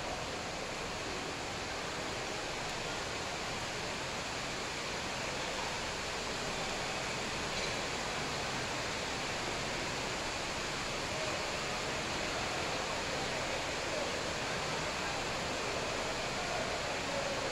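Steady, even rushing noise with no distinct shuttlecock hits or voices standing out.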